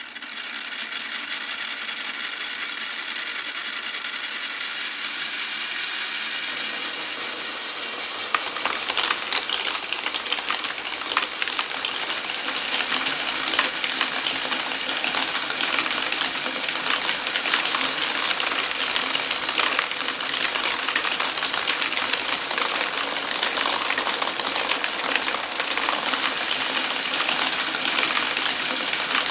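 Marbles running through a wooden and plastic marble run. A steady whirring hum comes first, then about eight seconds in it gives way to a dense, continuous clatter of clicks and rattles as many marbles roll and knock along the tracks.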